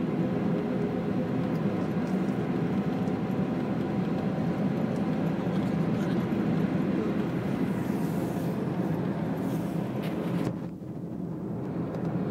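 Steady engine and tyre noise of a car driving at highway speed, heard from inside the cabin. About ten and a half seconds in, the hiss drops away and the noise turns duller and quieter for a moment before building back up.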